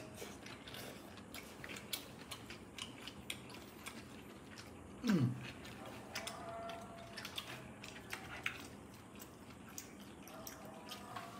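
Eating at a table: chopsticks and spoons clicking and scraping against plastic food containers, with chewing. About halfway through comes one short, louder low sound that falls in pitch.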